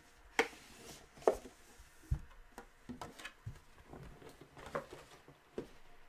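Scattered light clicks and taps, with a soft low thump about two seconds in: a card box and its packaging being handled on a table.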